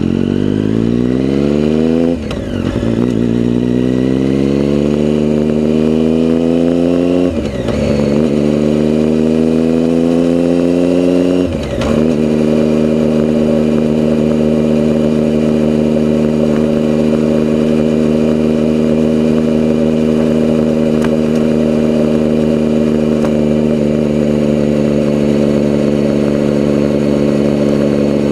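Vehicle engine accelerating up through the gears: its note climbs, dips briefly and drops in pitch at each of three upshifts in the first twelve seconds, then holds a steady note at cruising speed.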